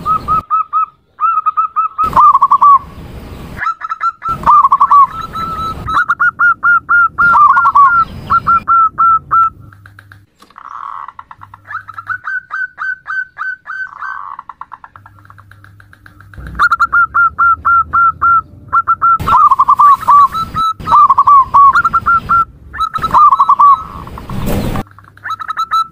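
Female zebra dove (perkutut) call: bursts of rapid, short staccato notes repeated with brief pauses, softer for a few seconds midway. A few brief loud crackles cut across the calls.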